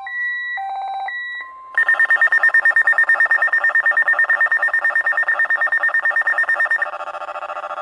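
NOAA weather alert radios going off: steady electronic tones with short overlapping beeps for the first second and a half, then a loud, rapidly pulsing alert alarm from about two seconds in. Near the end it switches to a quieter, lower pulsing pattern.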